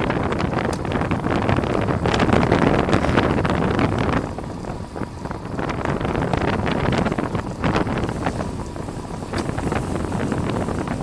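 Wind buffeting the microphone of a camera carried on a racing bicycle at speed, a loud rushing that eases for a moment about four seconds in.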